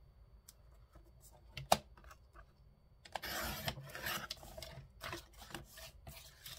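Paper being cut and handled at a craft table: a sharp click about two seconds in, then a scrape of blade or paper lasting about a second and a half, followed by shorter rustles and taps.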